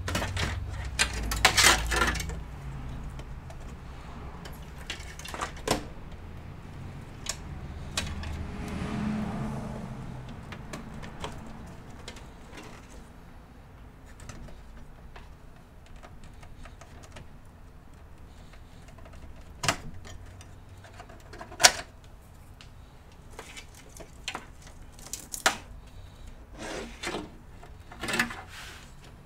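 Power supply cables and plastic connectors being handled and plugged into a PC: scattered clicks, rattles and knocks, with a cluster about a second in and a few sharper clicks in the second half.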